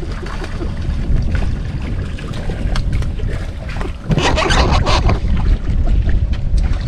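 Wind buffeting the microphone with a steady low rumble over the water, and a brief louder rushing noise about four seconds in.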